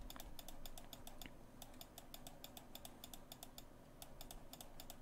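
Faint, rapid computer mouse clicking, several clicks a second, as the left button is pressed again and again.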